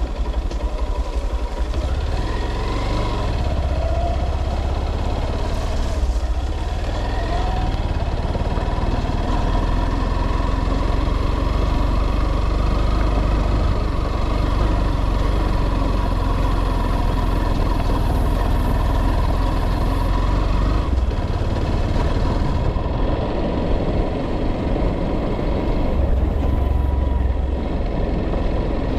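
Vehicle engine running steadily with a heavy low rumble.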